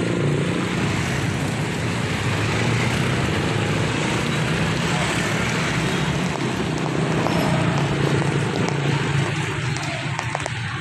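Motor vehicle engine running steadily with road and wind noise, easing slightly near the end.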